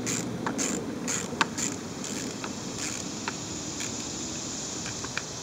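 Light metallic clicks and taps of bolts and hardware being fitted by hand into the fan hub on a new fan clutch, the sharpest about a second and a half in, over a steady low background hum.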